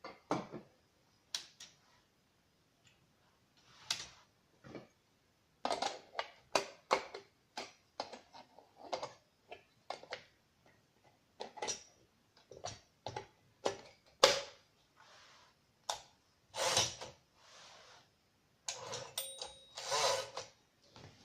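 Irregular clicks and clacks from a 1956 Remington Travel-Riter portable typewriter's mechanism being worked, with a few longer ratcheting sounds near the end.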